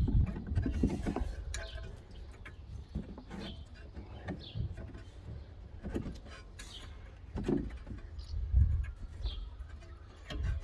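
Scattered metallic clicks and knocks with a few brief high squeaks, as a spanner works a brake bleed valve loose.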